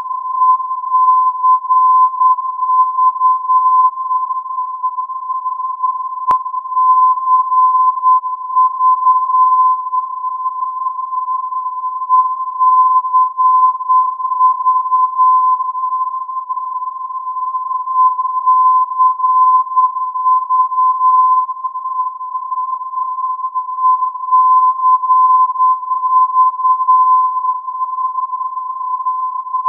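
Colmenar "ECV" non-directional beacon on 319 kHz, heard through an AM radio receiver as a steady tone of about 1020 Hz. The tone is keyed in Morse code with the beacon's ident, ECV, in louder stretches of about three seconds that repeat roughly every six seconds.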